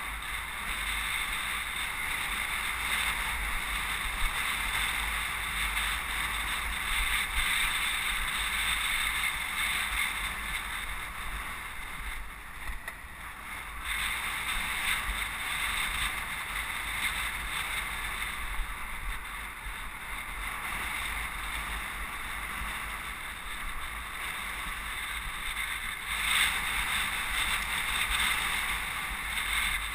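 Steady rush of wind on the microphone and road noise from a bicycle riding in city traffic. It eases briefly about twelve seconds in.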